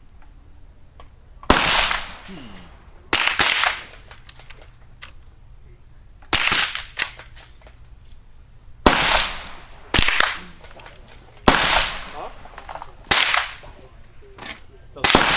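Rifle gunfire: about eight shots at uneven intervals of one to three seconds, each sharp crack followed by a short echoing tail.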